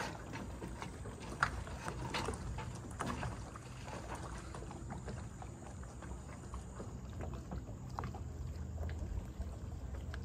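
Small lake waves lapping and splashing irregularly against the shore and moored boats, over a steady low wind rumble. The splashes come thicker in the first few seconds.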